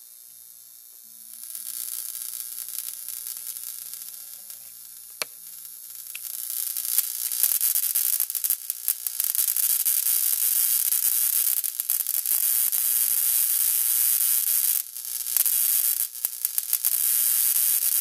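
High-voltage arc from an ignition coil, hissing and crackling between two copper electrodes. The coil driver has a 1 µF microwave-oven capacitor limiting its current to about 30 milliamps. The arc starts faint, grows loud about seven seconds in, and breaks off briefly near the end.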